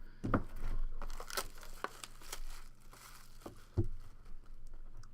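Plastic wrapping on a trading card box crinkling and tearing in short, irregular crackles as the box is opened, with one heavier knock a little before four seconds in.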